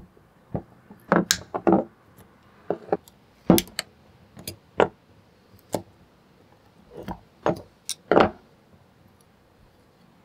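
Steel pliers clicking and clanking against the rusty hardware of an old vise's lead screw as it is worked apart: about a dozen irregular sharp metal clicks, a few short clanks in between, the loudest cluster a second or two in and another near the end.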